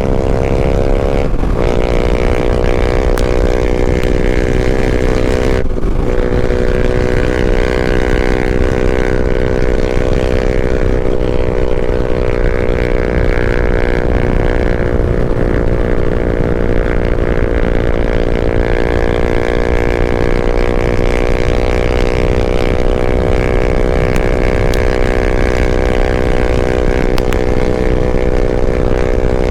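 Yamaha MT-07 parallel-twin motorcycle engine running steadily at cruising speed, its pitch drifting a little up and down, over a low rumble of wind on the microphone.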